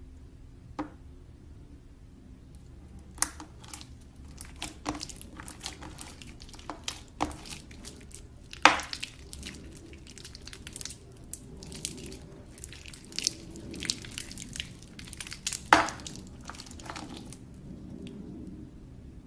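Slime being squeezed and pressed by hand, giving off irregular sticky clicks and pops. The clicks come in a dense cluster through the middle, with two louder pops.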